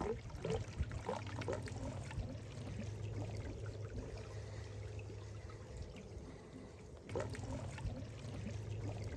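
Water trickling and pouring, with a steady low hum underneath.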